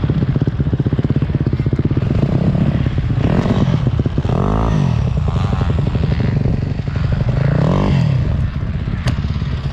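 Motocross bike engines: one dirt bike runs close by with a steady, rapid beat, while other bikes rise and then fall in pitch as they pass, once about four seconds in and again near eight seconds.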